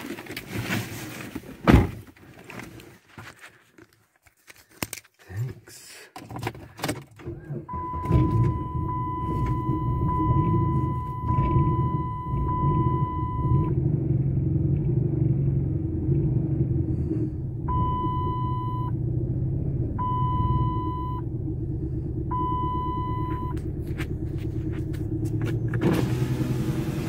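A car door shuts with a thud about two seconds in, followed by scattered clicks and knocks inside the cabin. The engine starts about eight seconds in and settles into a steady idle. A dashboard warning chime sounds as one continuous tone for about six seconds, then beeps three more times, each beep about a second long.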